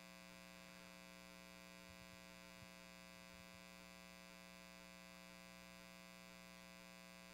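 Near silence with a steady electrical mains hum, one unchanging tone with many overtones.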